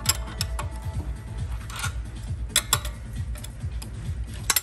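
Irregular metal clicks and clinks of a 19 mm wrench working a gas-line fitting on a refrigerant recovery compressor, with a few sharper clicks, most of them about two and a half seconds in and just before the end.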